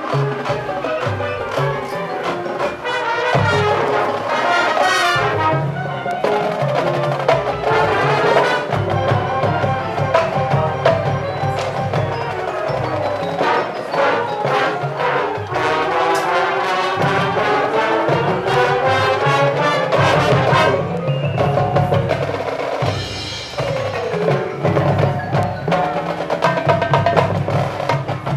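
High school marching band playing, with its percussion prominent (drums and front-ensemble mallet instruments) under brass. A cymbal-like crash comes about two-thirds of the way in.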